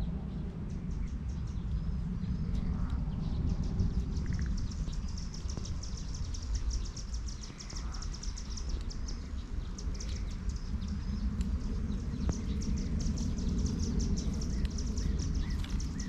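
Outdoor trail ambience: wind rumbling on the microphone under a steady, high, rapid chirping, with a few faint short bird calls.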